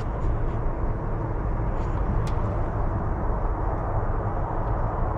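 Steady low rumbling outdoor background noise, with one short sharp click a little over two seconds in.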